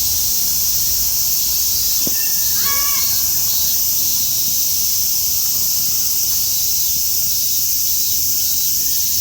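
Cicadas calling in a continuous, high-pitched chorus.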